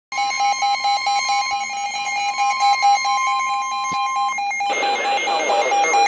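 Weather alert radios sounding together for a flash flood warning: a steady warning alarm tone that stops about four seconds in, over another radio's rapid pulsing beep. Just before the end, a hissing radio broadcast comes on under the continuing beeps.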